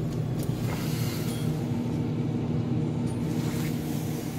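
Steady low mechanical hum of a refrigerated drinks display case's compressor and fan, with a few faint clicks in the first second or so.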